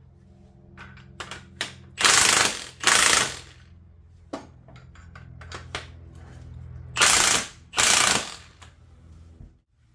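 A hand ratchet wrench worked in short strokes on a nut or bolt, its pawl clicking in loud bursts of about half a second. There are four strokes in two pairs, with a few lighter clicks between them and a low steady hum underneath.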